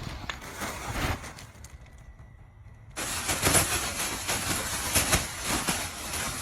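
The inflatable costume's small blower fan switches on suddenly about halfway through and then runs with a steady airy hiss and a thin high whine, with rustling and crackling of the costume. Before it starts there are only a few soft knocks.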